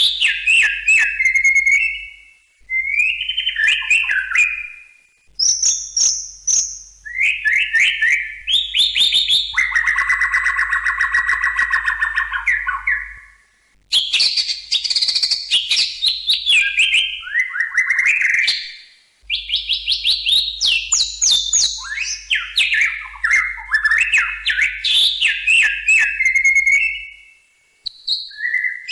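White-rumped shama (murai batu) singing: long, rapid runs of varied whistles, trills and chattering notes, broken by a few pauses of about a second.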